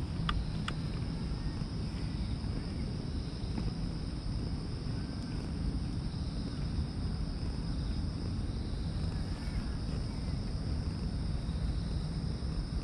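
A cat purring steadily as it is stroked, a low continuous rumble that shows it is content. A steady high insect drone runs underneath.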